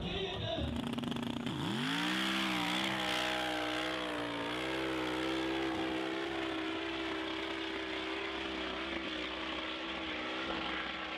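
Turbocharged sand hill-climb truck engine revving up sharply about a second and a half in, then held at high revs with small wavers in pitch as the truck climbs the dune.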